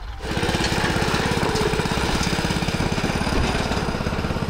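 A small engine running steadily with a fast, even beat, coming in suddenly just after the start.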